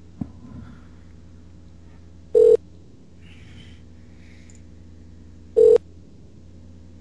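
Two short telephone-line beeps, about three seconds apart, at the same single pitch as a phone dial tone. They sound over a low steady line hum, with a click about a quarter-second in.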